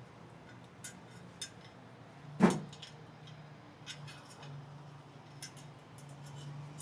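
Scattered metal clicks and clinks of elliptical trainer parts and hardware being handled during assembly, with one louder knock about two and a half seconds in, over a faint low hum that comes and goes.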